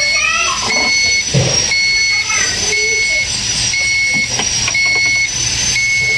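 An electronic beeper sounding a two-tone beep about once a second, each beep about half a second long, over a steady low hum.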